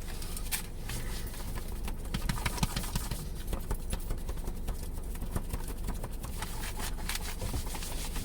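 Car engine idling, a steady low hum heard from inside the cabin, with small clicks and rustles throughout.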